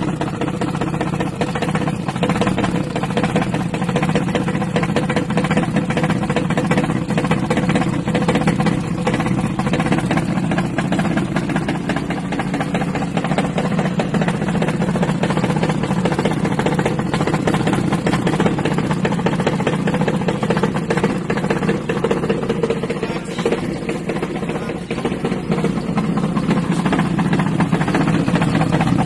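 Toyota Crown engine idling steadily with a rapid 'da-da-da' ticking, an abnormal engine noise that several engine teardowns have not cured.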